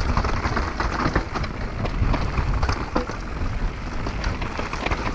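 Pivot Phoenix downhill mountain bike riding a rough, rocky trail: tyres rolling over dirt and stones, the chain and frame rattling with many sharp clicks, and wind rumbling on the camera microphone.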